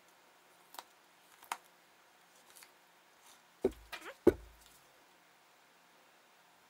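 A kitchen knife clicking and knocking on a wooden cutting board as a salmon fillet is trimmed. A few light clicks come first, then two sharp knocks about half a second apart a little past the middle.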